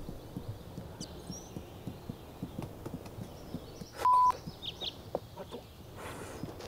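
Soft, irregular taps of juggling balls being caught and dropped, with birds chirping faintly outdoors. About four seconds in, a single short, loud electronic beep at one steady pitch cuts in.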